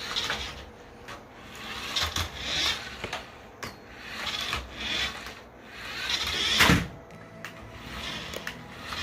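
Small toy remote-control car driving in short bursts, its motor and wheels whirring in repeated swells about a second long, with a knock near the end as the loudest swell cuts off.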